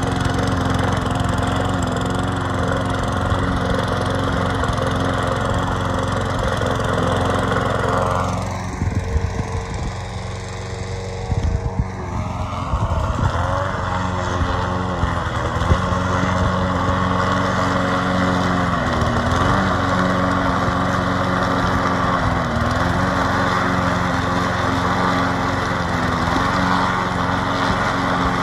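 Small four-stroke engine of a 21-inch Bolens walk-behind push mower running at working speed while cutting grass, no longer surging now that its cracked air intake has been patched with epoxy. About a third of the way in the sound drops and turns uneven with some knocking for a few seconds. Later the engine note sags briefly several times as it takes load and then picks back up.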